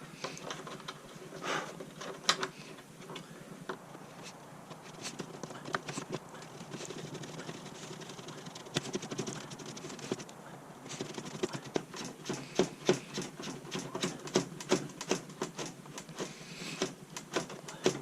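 Small clicks and taps of plastic parts being handled as the original lock nut is screwed onto the new twin USB socket in the scooter panel. The clicks come quicker and louder in the second half.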